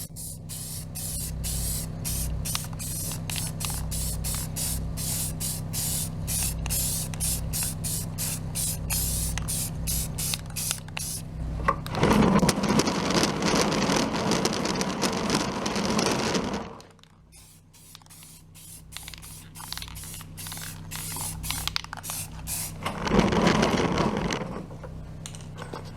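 Spray paint being sprayed onto a hubcap: a long run of quick short spurts, about three a second, then one continuous spray of about five seconds, and another short spray near the end.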